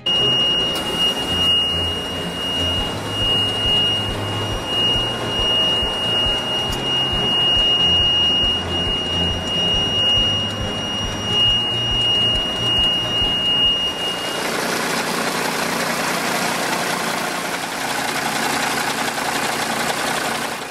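The M923A2 truck's Cummins 6CTA8.3 six-cylinder turbo diesel running, with a steady high whine over it. About fourteen seconds in, the whine stops and the low rumble gives way to a broad hiss.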